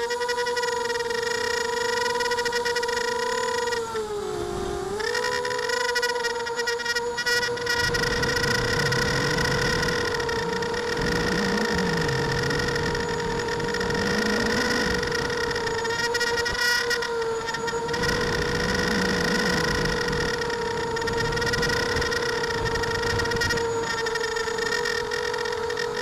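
ImmersionRC Vortex racing quadcopter's brushless motors and propellers whining steadily in flight, heard from the onboard camera. The pitch dips and recovers once about four seconds in, and a low wavering rumble joins from about eight seconds on.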